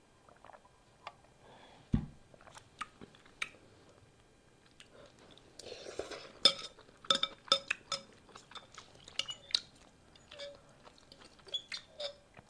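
Close-miked eating of pho rice noodles: chewing and mouth sounds, with a metal fork clicking against a glass bowl in quick runs of clicks. A single dull thump about two seconds in.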